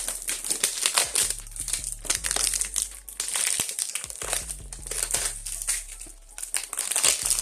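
Hands digging through crinkly packaging in a box: continuous crinkling and rustling with many small clicks, easing off briefly about three seconds in and again near six seconds.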